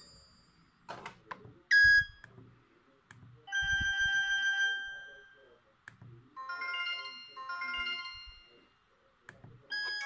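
LG U8330 flip phone being operated by hand: its keypad buttons click, with a short sharp key beep about two seconds in. The phone's speaker then plays a ringing electronic chord that fades away and two sustained chime notes, and a new ringtone melody begins right at the end.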